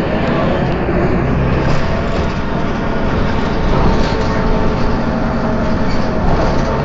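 Leyland Lynx single-deck bus running along the road, its engine a steady hum with road noise, heard from inside the saloon.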